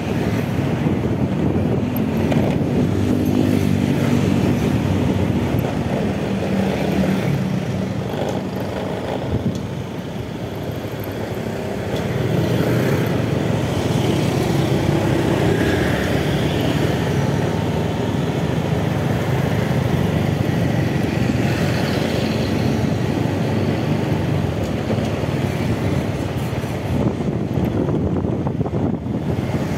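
Motorcycle engine running while riding along a city street with other traffic around it. The engine eases off about ten seconds in and picks up again about two seconds later.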